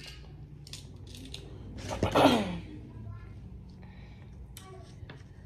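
Faint crinkling of a plastic bag and snapping of crab shell as fingers work crab meat out of the shell. About two seconds in, a short, loud vocal sound falls in pitch.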